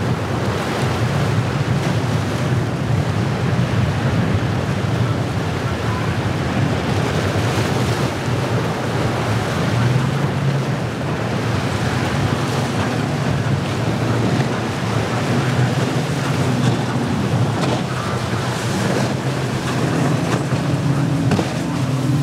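Wind buffeting the microphone over breaking waves and surf, with the steady low drone of boat outboard engines running through the chop.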